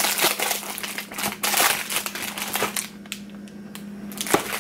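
Close rustling, crinkling and clicking handling noise, busiest in the first three seconds and sparser after, over a steady low hum.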